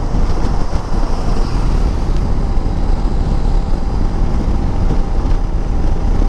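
Bajaj Dominar 400's single-cylinder engine running at steady highway cruising speed, under heavy wind rush on the microphone.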